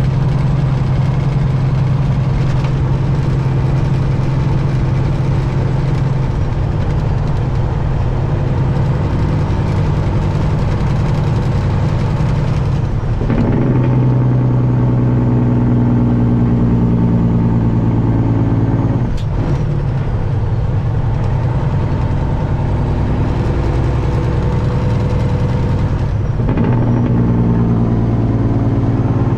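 Detroit diesel engine of a Peterbilt 379 running steadily, its note changing abruptly three times: about 13, 19 and 26 seconds in.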